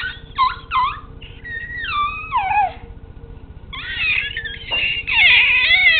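A baby fussing: short, high whimpers that fall in pitch, then about halfway through a louder, longer wail.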